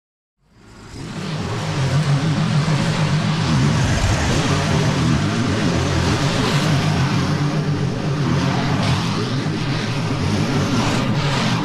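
Stand-on zero-turn mower's engine running steadily with its blades cutting through long, overgrown grass. The sound fades in over the first second or two.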